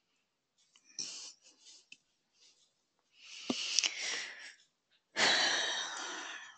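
A person breathing audibly close to the microphone: a short breath about a second in, a longer one a couple of seconds later, and a loud exhale that starts suddenly about five seconds in and fades away.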